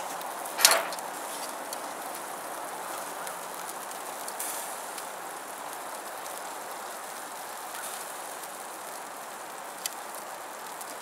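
Sausages and meatballs sizzling on a charcoal barrel grill: a steady crackling hiss. A brief louder sound comes just under a second in, and metal tongs click faintly a couple of times.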